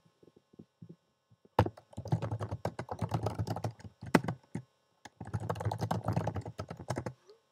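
Typing on a Mac computer keyboard: a few scattered key clicks, then two runs of rapid key clicks, each about two and a half seconds long, with a short pause between them.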